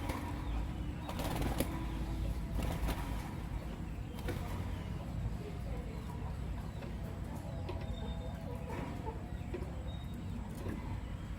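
Lovebirds chirping: a few short, sharp calls in the first half, then fainter, shorter calls, over a steady low background rumble.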